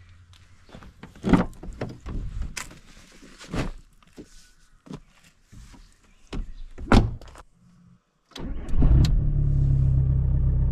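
A series of sharp knocks and clicks, then after a short break a car engine running steadily with a low drone.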